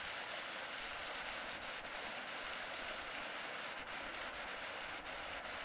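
Waterfall: thin streams of water falling from a rock ledge and splashing onto the rock and shallow pool below, a steady hiss.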